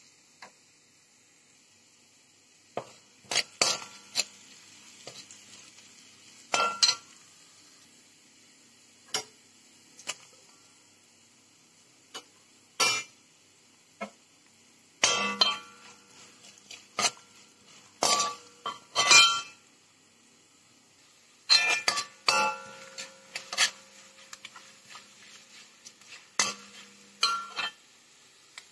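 A perforated steel spoon clinking and scraping against a wok while stirring frying onions, in irregular clusters of sharp clinks with brief ringing, separated by pauses.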